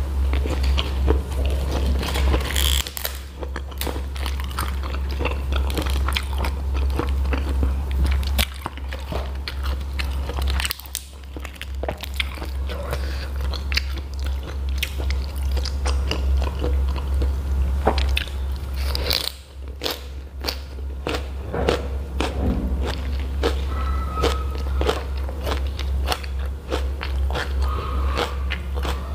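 Eating sounds: crunchy bites of raw pak choy and chewing of rice and spiced jengkol, with many short wet clicks and smacks. A steady low hum runs underneath.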